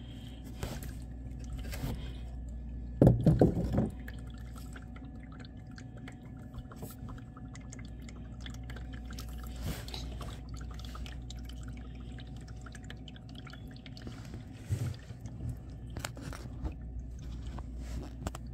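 Used engine oil draining from an Audi Q7's oil pan drain hole into a catch pan, falling in a steady stream. A brief, louder sound comes about three seconds in.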